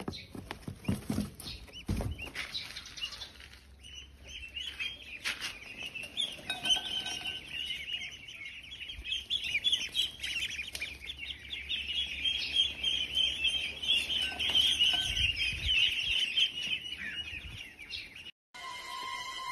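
A flock of ducklings peeping in a dense, continuous chorus of high chirps, preceded by a few seconds of rustling and light taps; the peeping stops suddenly near the end.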